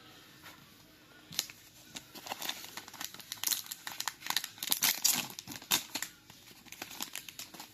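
A trading-card booster pack being torn open, its wrapper crinkling and crackling in a dense, irregular run that is loudest midway and dies away near the end.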